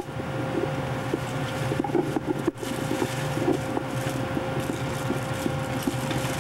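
Steady hum of the battleship USS Missouri's machinery and ventilation in a below-decks fire-control compartment, with a constant mid-pitched tone over a low drone and faint scattered ticks. The sound briefly cuts out near the start and again about two and a half seconds in.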